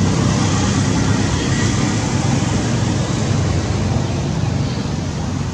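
Steady rushing noise with a low rumble, even throughout and easing slightly near the end, with no distinct calls or knocks.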